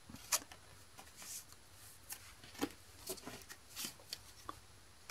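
Pokémon trading cards being handled and set down: faint, scattered short rustles and taps of card stock.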